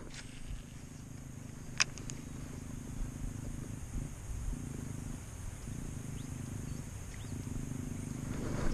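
Abu Garcia Black Max baitcasting reel being cranked to retrieve a lure: a faint low gear hum that pauses now and then. A sharp click about two seconds in.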